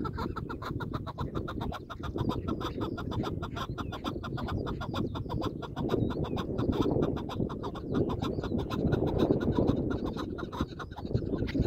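Chukar partridge calling in a fast, unbroken series of clucking notes, about ten a second, over a steady low rumble.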